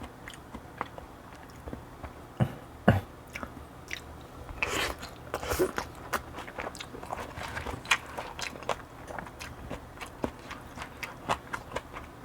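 Close-miked eating sounds: wet chewing and mouth clicks from someone eating barley bibimbap. There are two dull knocks about two and a half seconds in, and a longer noisy stretch near the middle.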